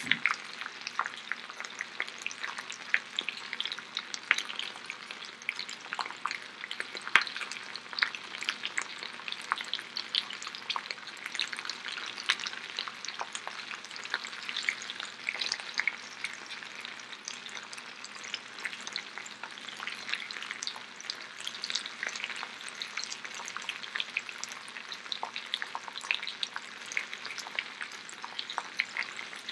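Potato galettes frying in oil in two skillets, a steady sizzle with frequent small crackles and pops.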